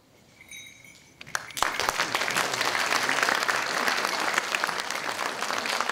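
Audience applauding, the clapping starting about one and a half seconds in after a brief hush and keeping up steadily.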